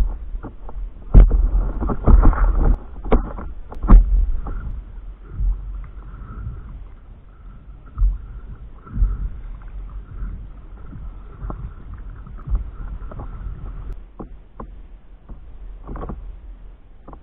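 Paddle strokes and water slapping and knocking against a stand-up paddleboard, heard up close from the board's nose, with wind rumbling on the microphone. The splashes and knocks come thick and loud for the first few seconds, then thin out and quieten.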